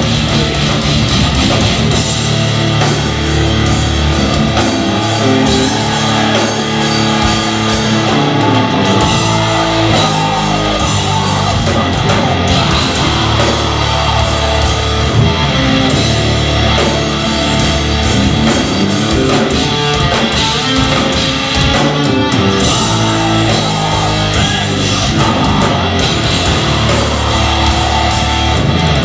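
Live progressive metal band playing loud and without a break: distorted electric guitars, bass and drum kit.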